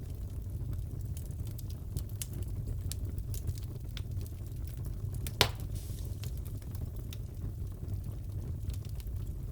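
Wood fire in a fireplace burning, with a steady low rumble and scattered small crackles, and one loud pop about five and a half seconds in.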